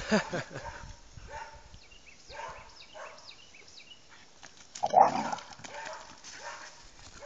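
Two dogs playing and scrambling through brush and mud, with a short cry at the start and one sharp, loud bark about five seconds in.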